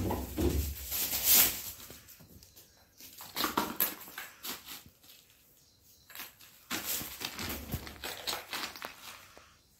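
A cat chewing and licking a wire cage ball toy with small bells inside, the bells jingling and rattling in three bursts: one right away, one a few seconds in, and one near the end.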